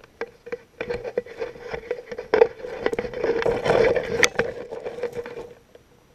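Handling noise close to the microphone: rustling, scraping and clicks as the camera is moved and turned, with one sharp click about four seconds in. It dies away shortly before the end, leaving a faint steady hum.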